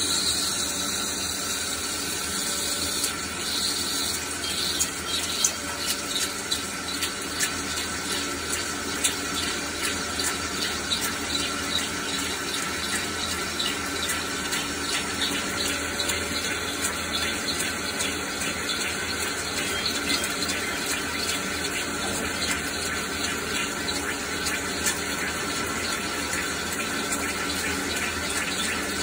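CNC lathe cutting the face of a spinning metal disc under a flood coolant jet: a steady hiss and splash of coolant over faint steady machine tones, with scattered sharp ticks of chips coming off the cut.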